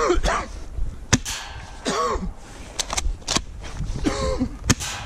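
Airsoft gun firing: about five sharp, dry pops spread over the few seconds, two of them in quick succession near the middle.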